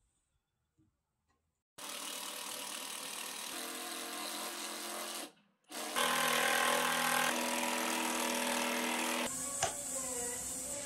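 Cordless drill running under load into a timber beam, in two runs: one starting about two seconds in, and a louder one after a short break. A single sharp knock comes near the end.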